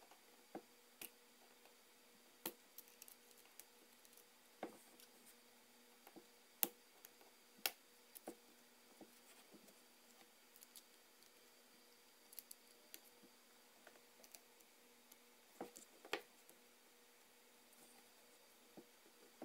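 Faint, scattered small clicks and taps of a tool prying ribbon-cable connectors loose from an iPhone 4S's main board, with a faint steady hum underneath.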